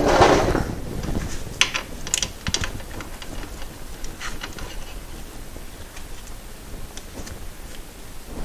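A brief scrape, then scattered clicks and knocks as shift linkage parts are worked loose by hand under a car, over a low rumbling background.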